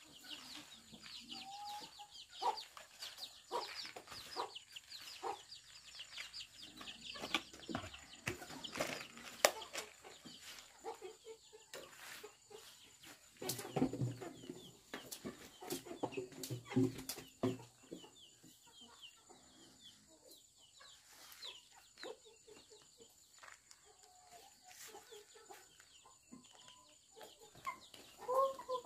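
Chickens clucking, with a run of quick high chirps over roughly the first ten seconds. Under them come small clicks and rustles of a dry bran feed mixture being tossed and scooped by hand.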